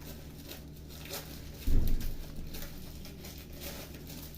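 Light handling noises from food being laid and pressed by hand, with faint scattered taps and one loud dull thump a little under two seconds in.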